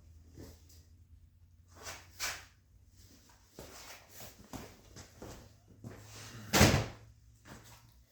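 Hand-work noises on a motorcycle seat and its hardware: a few short knocks and scrapes, then one heavy thump about six and a half seconds in.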